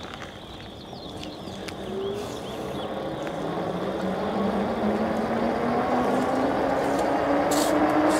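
Senada Roamer electric bike's 1000 W motor whining under full throttle as the bike accelerates uphill, its pitch rising steadily, with a growing rush of wind and road noise as the speed builds.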